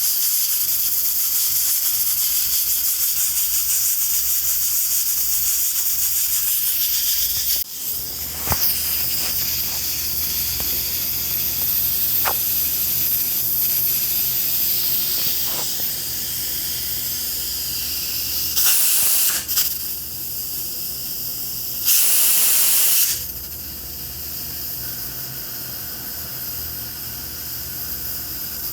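Pressure cooker venting steam through its valve: a steady hiss with a fast flutter that drops in level about a quarter of the way in, then two short, louder bursts of steam in the second half.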